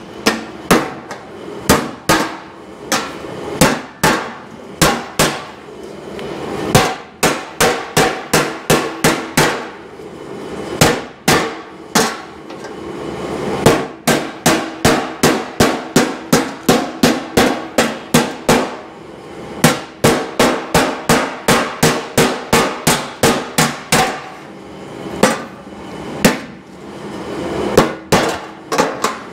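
Hammer tapping the edge of a sheet-steel rocker panel down over an old steel bumper used as an anvil, forming a bent lip for a patch panel. Runs of sharp metallic strikes, about three or four a second, with short pauses between runs and a ringing tone after the blows.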